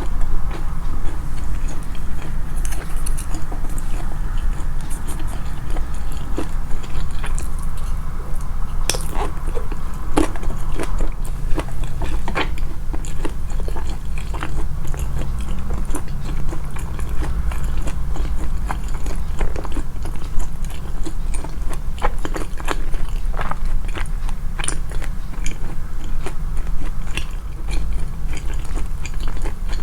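Close-miked chewing and biting, amplified in editing: a steady low mouth rumble with frequent sharp, crisp clicks of food being bitten and crunched.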